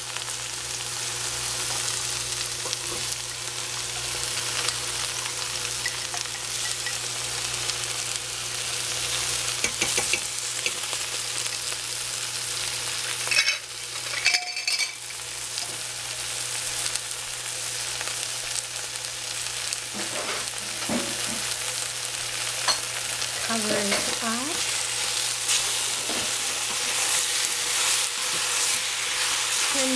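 Eggplant and minced meat sizzling in hot oil in a stainless steel pot while being stirred with a wooden spoon: a steady frying hiss, with a few knocks of the spoon and a short lull about halfway through.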